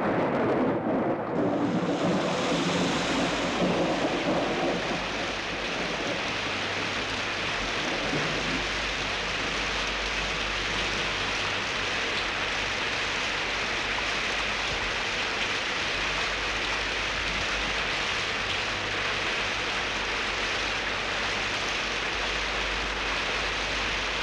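Thunderstorm: a rumble of thunder that dies away over the first few seconds, then steady rain.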